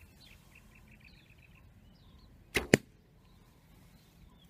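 A single shot from the SAS Tactical Survival Bow, a takedown bow with pivot-pin limbs, fitted with no string silencers. Two sharp cracks come about a sixth of a second apart a little over halfway through, the second one louder.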